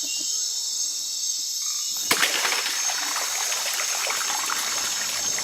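Water splashing and trickling, starting suddenly about two seconds in and going on as a busy crackle of small splashes. Under it runs a steady high-pitched chorus of night insects.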